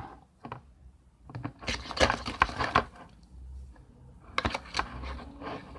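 Slime with sand mixed in being stirred in a container: a utensil scrapes and clicks against the sides in two spells of quick strokes, the mix just thickening after borax water was added.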